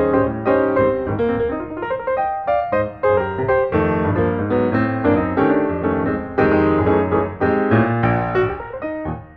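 Piano music, a quick run of struck notes over a bass line.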